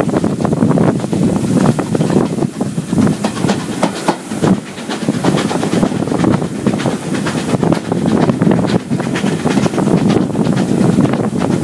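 Train coaches running at speed, heard from an open carriage window: the rumble and clatter of wheels on the rails under heavy wind noise on the microphone.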